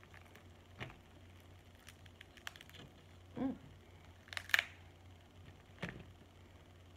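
Cooked snow crab legs being snapped apart and their shells cracked by hand: a handful of separate sharp cracks and clicks, the loudest about four and a half seconds in.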